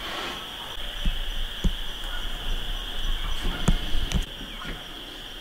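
Footsteps on dry leaf litter, with a few heavier thuds about a second in and again near three and a half and four seconds, and a couple of sharp twig-like snaps. A steady high-pitched chorus runs underneath.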